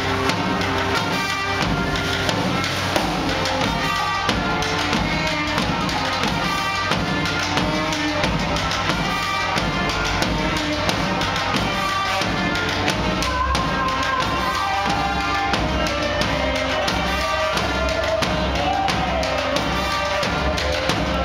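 Live brass band with drums and cymbals playing: horns over a steady drum beat.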